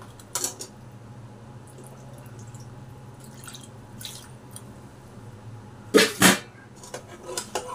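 A steel ladle and a small steel cup clinking against a stainless steel pressure cooker holding thin curry, with a trickle of liquid into the pot. Two loud metal knocks come close together about six seconds in, over a low steady hum.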